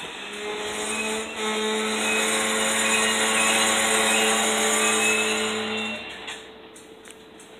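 A steady, pitched metallic squeal from the slow-moving loaded covered hopper cars of a freight train. It holds for about six seconds, then stops, leaving quieter rolling noise.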